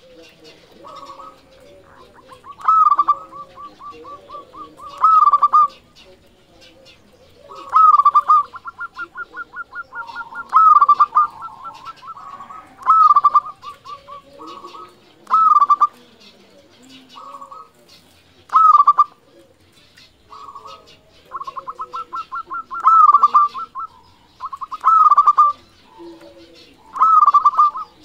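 Zebra dove (perkutut) singing: loud cooing phrases repeated about every two seconds, with fast stuttering runs of short notes between some of them.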